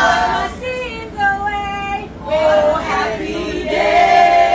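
A group of bus passengers singing together, mostly women's voices, with long held notes, over the steady low rumble of the bus.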